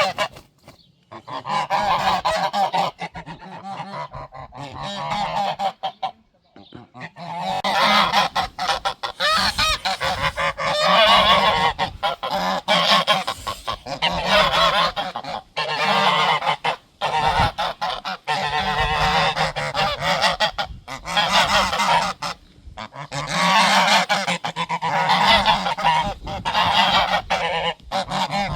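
Several domestic geese honking loud alarm calls, defending their territory. The calling is broken for the first few seconds, then builds to near-continuous overlapping honks from about seven seconds in.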